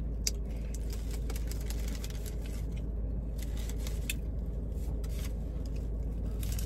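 Faint scattered clicks and rustles of a bone-in chicken wing being handled, dipped into a plastic cup of ranch and bitten, over a steady low hum.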